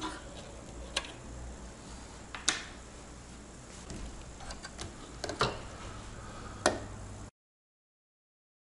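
Scattered light clicks and snaps of a CPU cooler being unlatched and pulled off a motherboard by a gloved hand, over a low hum. The sound cuts out abruptly about seven seconds in.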